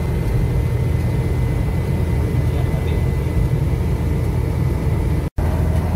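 Cabin drone of a 1983 Daihatsu Taft F50 cruising on the highway: steady, low engine and road noise. The sound cuts out for an instant about five seconds in.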